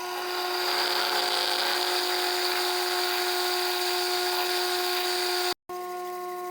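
Small benchtop machine tool's motor running with a steady whine while a drill bit cuts a clearance hole in the metal part, adding a loud even hiss for about five seconds. The hiss cuts off abruptly and the motor whine runs on alone.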